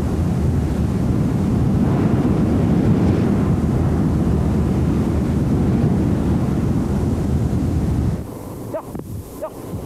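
Loud, steady rumbling noise, like wind buffeting the microphone, that drops away about eight seconds in. A few short rising-and-falling chirps follow near the end.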